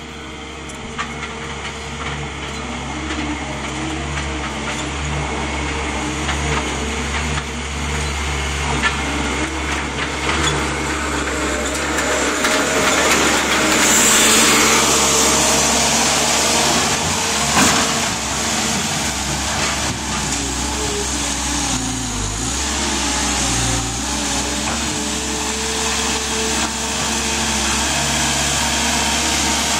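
New Holland skid steer loader's diesel engine running steadily, growing louder as the machine drives up close about halfway through, with a loud hiss over the engine as it passes, and a single sharp knock a few seconds later.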